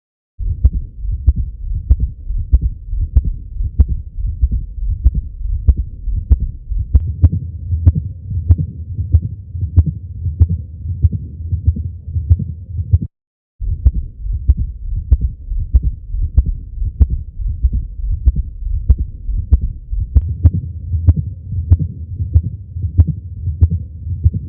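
Recorded human heart sounds: a regular heartbeat of about one beat a second, with a continuous low rumble between the beats. The recording drops out for about half a second around thirteen seconds in, then resumes.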